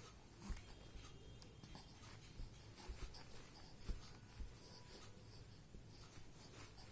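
Near silence with faint rustling and a few soft thumps scattered through.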